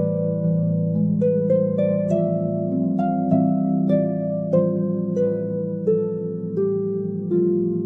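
Background music: a melody of plucked, harp-like notes, a new note every half second or so, over steady low held tones, stepping downward in pitch through the second half.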